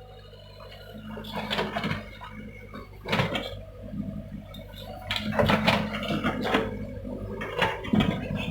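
Hyundai excavator running with a steady low engine hum, with four louder rushing, scraping bursts as the machine works soil.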